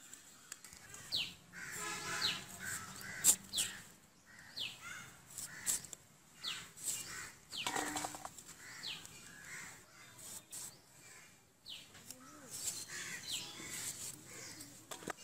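Potatoes being sliced on a boti, a curved floor blade: sharp cutting clicks, and wedges dropping into a steel bowl, one with a brief ring about eight seconds in. Over it a bird calls again and again with short falling chirps.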